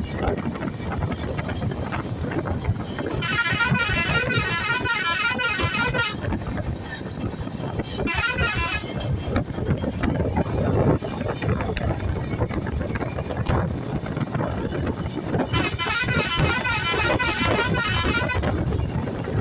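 Vehicle horn sounding a warbling, wavering tone three times: about three seconds, then a short blast, then about three seconds again. It sounds over steady engine and road noise.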